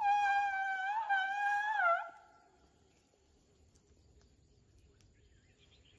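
Asian elephant giving a high, squeaky call that lasts about two seconds, wavering slightly and dipping in pitch at the end.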